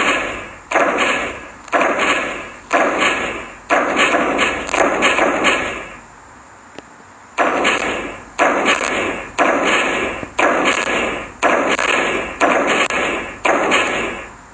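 Heavy banging repeated about once a second, each bang ringing on and fading, sometimes in quick double or triple strikes, with a short pause about six seconds in.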